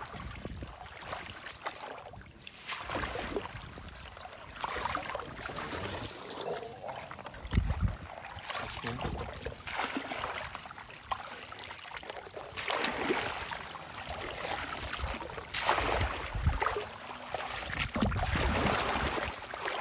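Shallow marsh water sloshing and splashing in irregular surges as a woven bamboo basket is scooped and dragged through the water and weeds by someone wading, with one dull bump a little over a third of the way through.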